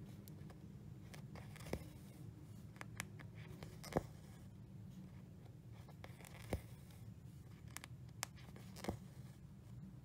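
Cross-stitch needle pushed through 14-count aida fabric and cotton thread drawn through, heard as soft rustling with a few sharp light clicks spaced a couple of seconds apart, over a steady low hum.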